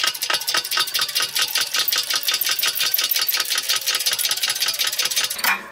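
Shop press pressing a tapered roller bearing onto a differential pinion, its pump running with a rapid, even clicking of about ten clicks a second that stops near the end.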